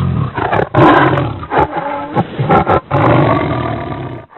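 Tiger roaring: several loud roars in quick succession that cut off abruptly near the end.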